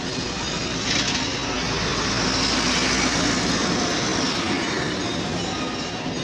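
A road vehicle passing close by: a noisy rush that swells from about a second in and fades away near the end.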